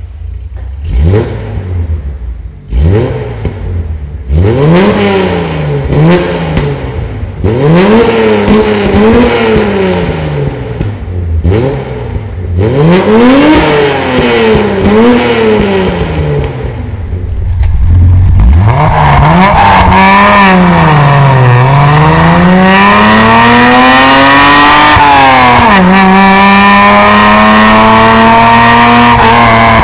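Datsun 240Z's 2.4-litre straight-six being revved at standstill in a series of quick blips, each rising and falling in pitch. Partway through it changes to the car under way, the engine running hard and climbing through the revs, with upshifts where the pitch drops.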